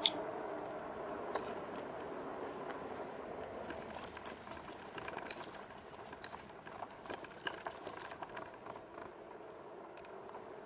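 A 2019 Rad Power Bikes RadMini Step Thru fat-tire e-bike and its front basket and handlebar accessories rattling and clicking as it rides off the sidewalk over grass and dirt. The clicks and jangles come thickest in the middle, over a steady rolling hum.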